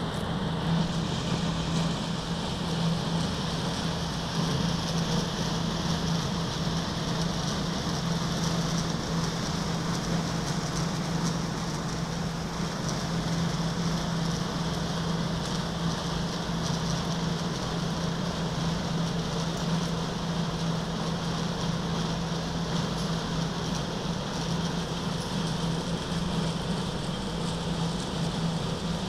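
Small cold milling machine (Wirtgen W 50) running steadily, its diesel engine and milling drum making a constant low hum over an even mechanical rumble.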